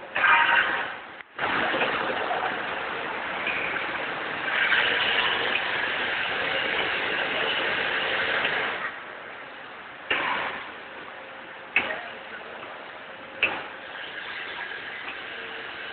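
Automatic snack packing machine running: a steady mechanical rushing noise, louder through the first half, then sharp clacks about every second and a half.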